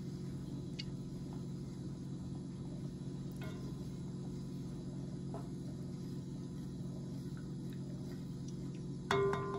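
A wooden spoon stirring liquid in a metal saucepan, with a few faint scrapes and ticks over a steady low hum. About nine seconds in, a sudden ringing tone with several pitches starts.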